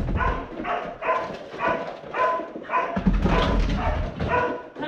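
Dog barking over and over, about two barks a second, with a low rumble underneath in the second half.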